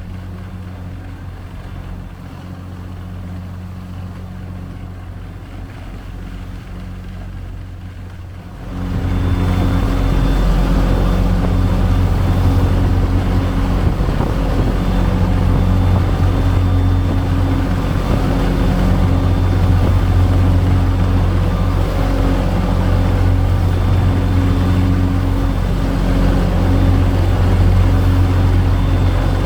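Passenger boat's engine running with a steady low hum, growing much louder about nine seconds in, with a rush of noise over the hum from then on.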